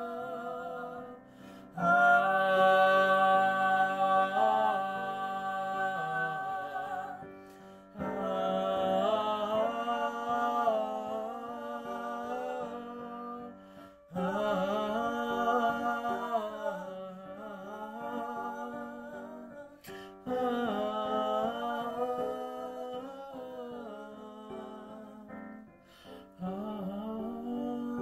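A woman and a man singing long, held notes in harmony over digital piano chords. Each phrase starts abruptly, about every six seconds.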